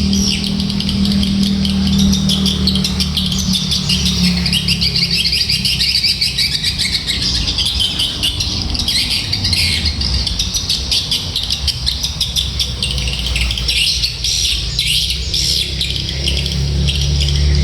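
Small birds calling nonstop in a dense chatter of rapid, high chirps, over a steady low hum.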